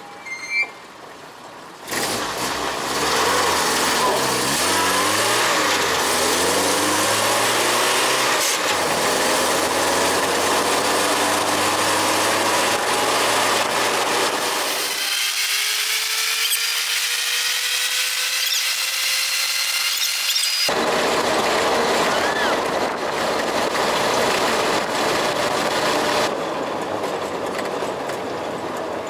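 A vehicle engine revving up and down repeatedly, then climbing slowly in pitch as if accelerating. Partway through, the low end drops away and a rising whine carries on for several seconds before the full sound returns.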